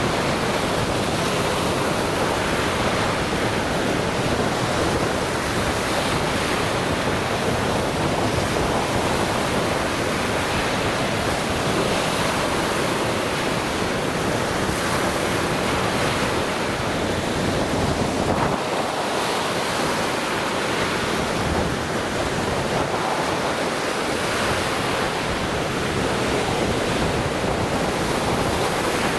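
Lake Michigan waves breaking and washing on the shore in a steady, continuous surf.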